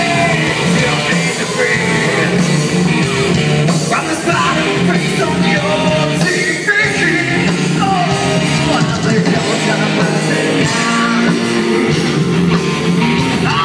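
Live rock band playing loudly, with a vocalist singing over drums and electric guitars.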